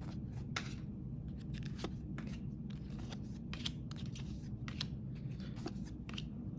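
Trading cards being handled and slid past one another, with light, irregular clicks and scrapes of card edges, over a low steady background hum.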